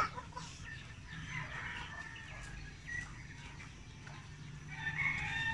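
Rooster crowing: one long call near the end, with fainter calls earlier.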